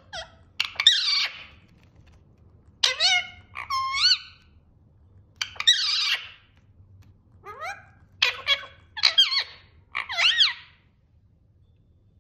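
Agitated parrot squawks: about nine short, squeaky calls spread over ten seconds, each bending sharply up and down in pitch.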